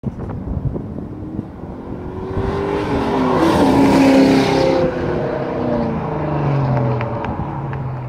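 Ford Mustang V8 accelerating hard past, engine pitch climbing through a gear change. It is loudest as it goes by about four seconds in, then keeps pulling away, fainter.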